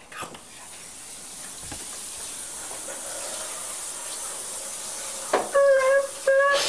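Shower water spraying as a steady hiss that slowly grows louder. About five seconds in, a loud, high-pitched, steady cry or scream breaks in twice in quick succession.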